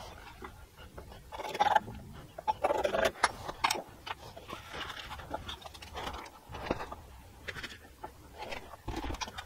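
A steel scriber scratching marking lines into a steel bushing that has been blackened with felt marker, in short irregular strokes, with a few light clicks of metal on metal.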